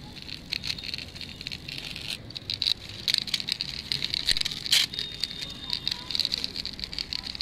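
Small die-cast toy pickup truck pushed by hand over rough concrete: its little wheels roll and grind on the grit with a steady, scratchy crackle, broken briefly about two seconds in, with one sharper click a little past the middle.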